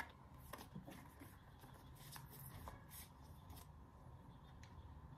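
Faint rustling and small clicks of a thin paper-card documentation envelope being pulled open and handled, with one sharper click at the start.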